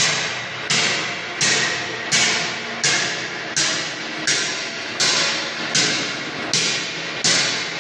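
Tobacco blending bin machinery running, giving a sharp knock that trails off, repeating evenly about every three-quarters of a second.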